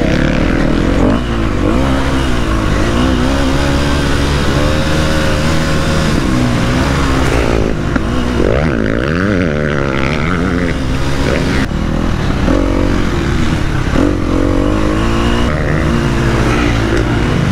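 KTM 250 SX-F single-cylinder four-stroke motocross engine heard from on the bike, revving up and down as the throttle is opened and closed over the dirt track.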